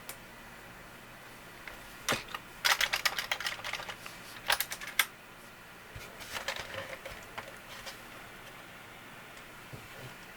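Plastic computer keys being pressed in a quick clattering burst about two seconds in, a couple more sharp clicks a little later, then softer scattered clicking.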